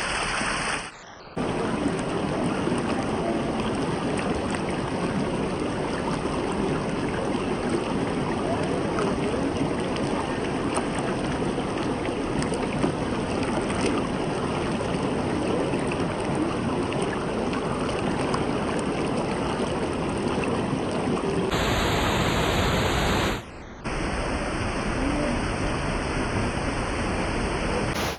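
Waterfall: a steady rush of falling water. It briefly drops away twice, about a second in and a few seconds before the end, where one shot cuts to the next.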